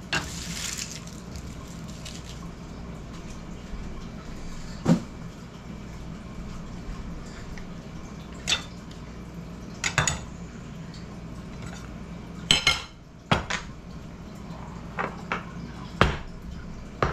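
Kitchen utensils knocking and clinking on wooden cutting boards at irregular intervals, a handful of sharp hits over a steady low hum.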